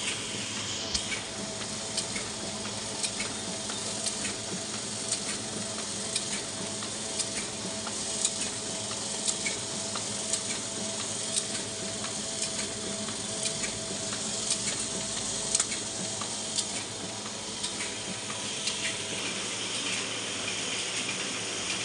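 Ryobi 3302H two-colour offset printing press running at speed: a steady rush of machine noise with a faint held tone and a light click about once a second.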